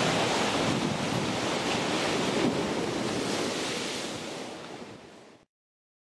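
Surf washing against a rocky shore, with wind buffeting the microphone. The sound fades out over about a second and cuts to silence near the end.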